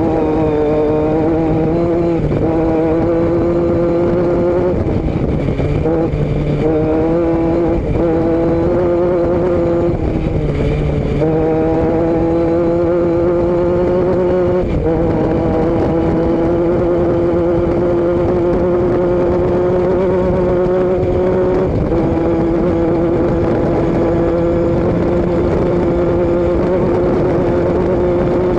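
Motor vehicle engine and exhaust running steadily under way. The engine note creeps up slowly and drops back several times.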